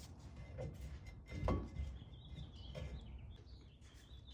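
Faint handling of brake parts with a light knock about a second and a half in, and faint bird chirps in the background through the second half.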